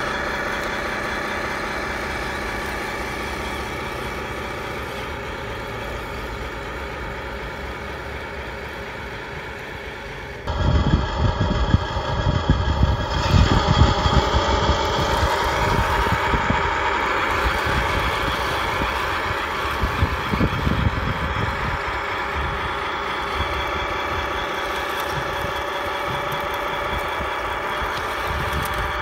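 1/16-scale radio-controlled Panzer IV tank running over rough dirt and rocks: a steady engine-like drone with motor whine from the model. About ten seconds in it turns suddenly louder, with a heavy low rumble and uneven clatter, before settling back to a steady drone.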